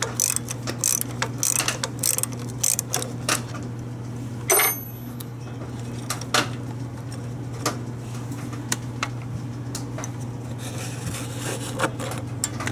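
Ratchet wrench clicking in short strokes as it backs a screw out of the carburetor, for about the first three seconds. A single sharp metallic clink with a brief ring comes about four and a half seconds in, followed by a few scattered light clicks over a steady low hum.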